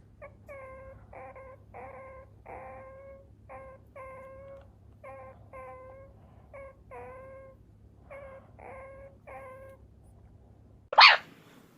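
Meerkat calling: a run of short, pitched chirping calls, roughly one or two a second, then a single much louder, shrill call near the end.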